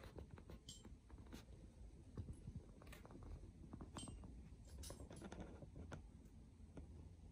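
Near silence: room tone with a faint low hum and a few scattered soft ticks and rustles.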